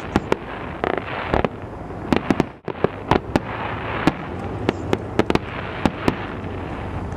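Aerial fireworks display: many sharp bangs from bursting shells, irregular and overlapping, over a continuous crackle, with a brief break about two and a half seconds in.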